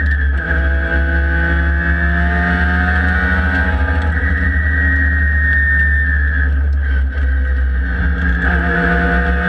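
SCCA E Production race car engine running at steady moderate revs, its pitch drifting slightly up and down, with a brief lift and dip about seven seconds in before it steadies again.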